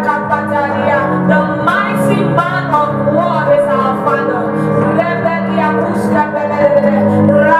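Worship music: a singing voice over held keyboard chords.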